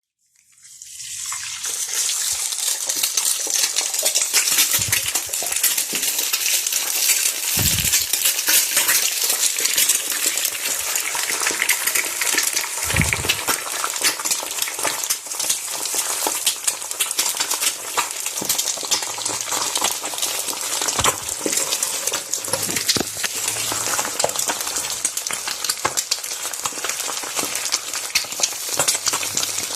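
An egg frying in hot oil: dense, steady sizzling and spattering crackle that builds up over the first second or two, with a few soft low thuds along the way.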